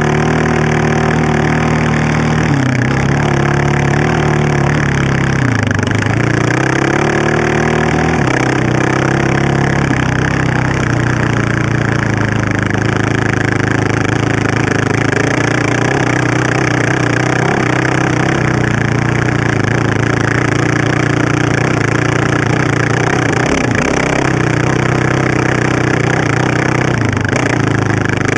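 Honda TRX700XX sport quad's single-cylinder four-stroke engine, fitted with an aftermarket FMF exhaust, running under way, the revs dipping and climbing back several times as the throttle is let off and opened again.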